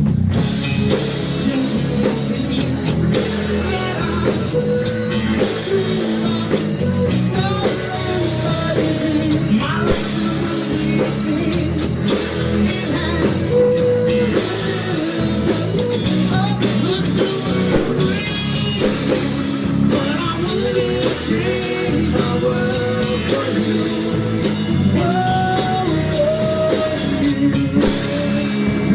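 Live rock band playing: electric guitars over electric bass and a drum kit, steady and loud throughout.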